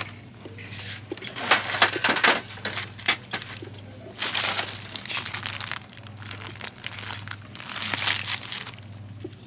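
Plastic-packaged Christmas decorations being handled, crinkling in several bursts over a steady low hum.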